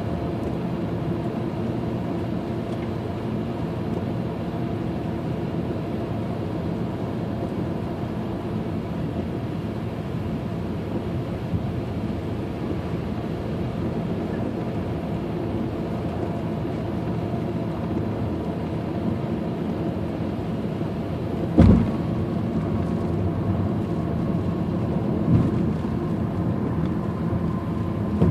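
Steady road and engine noise inside a car driving on a wet highway, a low hum with no words over it. A sharp thump comes about 22 seconds in and is the loudest moment. A smaller knock follows about three seconds later.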